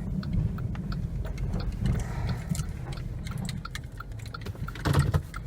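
Low rumble of a 2013 Jeep Grand Cherokee rolling slowly as it pulls in, with scattered light clicks and ticks and a louder knock about five seconds in.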